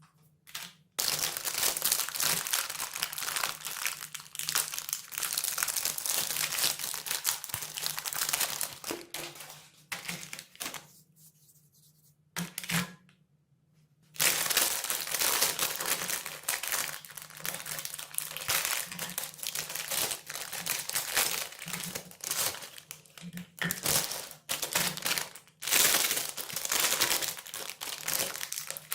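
Plastic ice cream wrappers crinkling as they are handled and torn open, in long bursts with two short pauses about midway.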